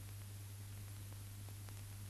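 No soundtrack, only the background noise of a silent film transfer: a steady low hum with hiss and a few faint clicks.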